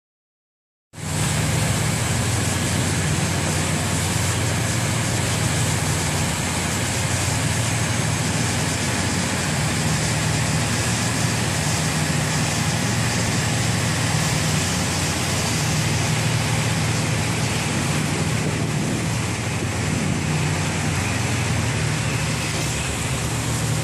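Steady low drone of a tugboat's diesel engines under way, with an even hiss of wind and water over it. It starts abruptly about a second in.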